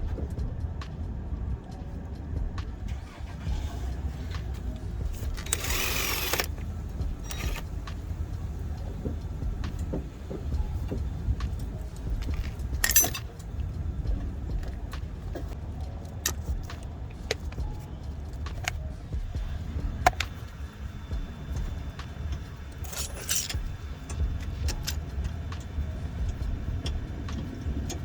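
Scattered light metallic clinks and rattles of hand tools and brake parts being handled during a rear brake pad job, over a steady low rumble. Three short noisy bursts stand out, about 6, 13 and 23 seconds in.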